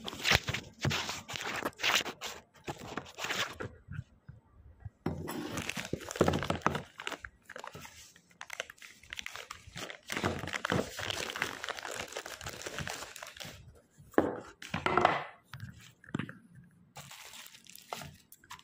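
A plastic parcel mailer and the packaging inside it being torn open and handled, with irregular crinkling and tearing, small knocks and short pauses.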